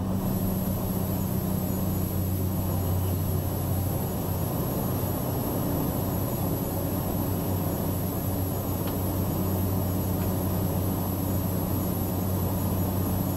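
Cessna 208B Grand Caravan's Pratt & Whitney PT6A turboprop and propeller at takeoff power during the takeoff roll and lift-off, heard inside the cockpit. A steady drone with a thin high turbine whine above it.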